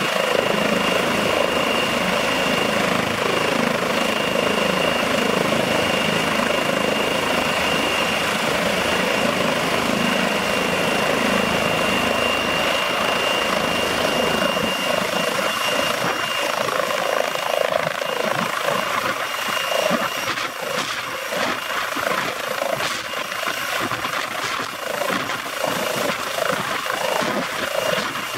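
Eurocopter EC135 P2+ helicopter running on the pad, its twin Pratt & Whitney PW206B2 turboshaft engines giving a steady high turbine whine over the rotor noise. From about halfway the low rumble drops away and the sound turns uneven with rapid rotor beats as the helicopter comes up to lift off near the end.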